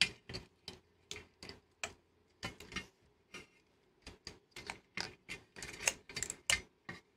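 A run of small, irregular clicks and taps, about two dozen of them, from hands working cable plugs and a foil-shielded power-supply board loose inside a metal monitor chassis.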